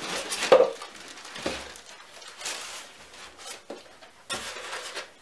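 Expanded polystyrene packing insert being pulled up out of a cardboard box: irregular rubbing, scraping and knocks of foam against cardboard.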